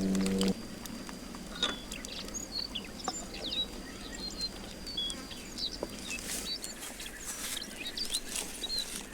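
Small birds chirping and tweeting in short repeated calls, with a few light clicks and taps among them. A low steady hum cuts off about half a second in.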